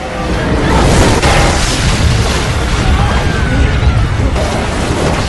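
Film sound effects of a car crash: a loud, dense, continuous mix of booms and crashing with a heavy low rumble.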